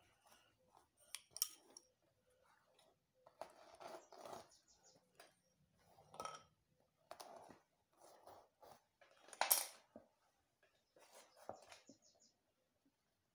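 Faint, scattered rustles and scrapes of hands and a wooden tail comb working through hair during cornrow braiding, with a few sharp clicks. The loudest comes about nine and a half seconds in.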